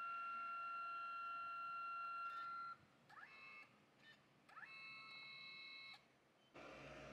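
Kodak Mini Shot 3 Retro dye-sublimation photo printer running its laminating pass: the paper-feed motor whines at a steady pitch for about two and a half seconds, stops, spins up twice with short rising whines, then runs steady again for about a second. Near the end a rushing noise takes over.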